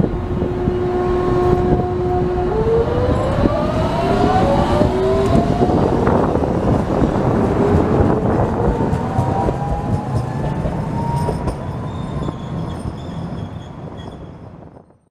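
Hiroden 3900-series articulated tram pulling away from a stop and passing close by. Its motor gives a steady whine that, about two and a half seconds in, steps into several rising whines as the tram speeds up, over the rumble of wheels on rail. The sound fades out near the end.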